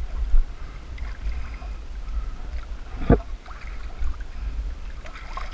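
Water sloshing and splashing as someone wades through a pool, over a steady low rumble on the microphone, with a single sharp knock about three seconds in.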